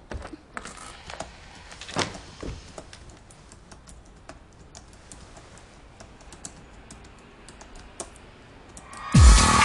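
Typing on a computer keyboard: an irregular patter of key clicks with a few louder taps. Near the end a deep thump and music come in.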